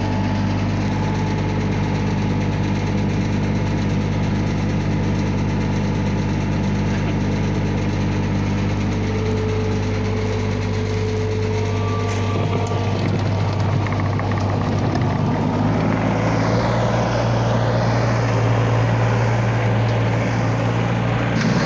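Compact track loader's diesel engine running steadily. About two-thirds in, the sound grows busier and slightly louder as the machine moves off on its tracks, with a whine that dips and rises.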